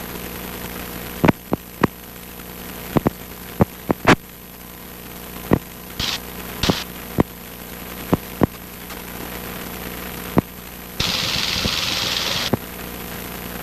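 Cessna 150's four-cylinder Continental O-200 engine and propeller droning steadily in flight, heard inside the cabin. Over it come a string of sharp clicks or knocks, and near the end a hiss lasting about a second and a half.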